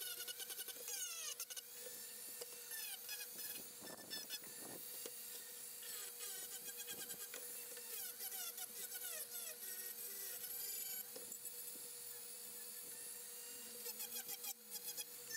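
Handheld rotary tool with a sanding drum running and grinding down the overbuilt seam lines of 3D-printed PLA parts. It is a steady whine whose pitch wavers as the drum is pressed against the plastic.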